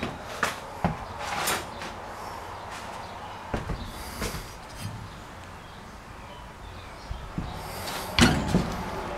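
Clunks and knocks of the metal doors and panels of old front-loading coin laundry machines being handled, a few scattered light knocks then a louder cluster of clunks about eight seconds in.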